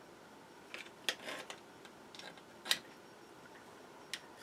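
A few sharp clicks and small knocks from the charger's wet circuit board and the pliers being handled over a plastic tub of salt water, the loudest click about two-thirds of the way in. A faint steady hum runs underneath.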